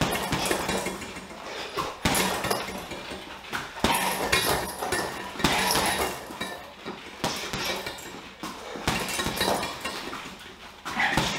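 Boxing gloves punching a hanging heavy bag, sharp thuds coming in quick combinations of several punches with short pauses between them.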